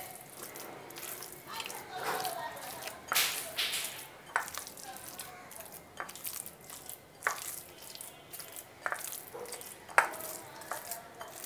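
A hand squeezing and mixing wet minced chicken in a bowl: irregular wet squelches and small slaps, with a sharp click about ten seconds in.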